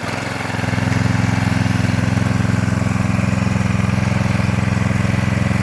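The small single-cylinder gas engine of a Ryobi 3300 psi pressure washer, a Honda GCV200, has just started. It picks up about a second in, then runs steadily while it warms up on its automatic choke.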